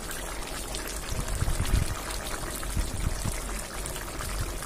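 Fish curry simmering in an open pot on a gas stove: a steady bubbling, hissing noise, with a few soft low bumps in the middle.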